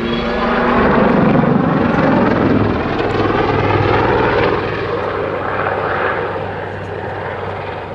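Army Air Corps Westland Lynx helicopter flying a backflip manoeuvre: steady rotor and engine noise with a low hum. It is loudest a second or two in, then slowly fades as the helicopter moves away.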